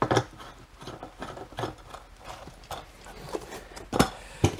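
Metal leg tubes of a Campingaz Party Grill 600 Compact knocking and clinking against the grill base as they are screwed in and handled. The knocks come irregularly, with a sharp one just after the start and two loud ones near the end.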